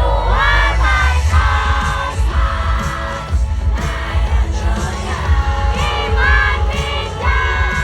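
Live pop/hip-hop music over a concert sound system, with heavy bass and a voice singing a melody that bends up and down, and a crowd yelling along, heard from among the audience.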